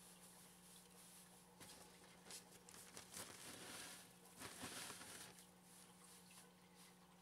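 Faint rustling and crunching of aspen wood shavings being pushed and spread by hand over the floor of a glass tank, loudest through the middle few seconds.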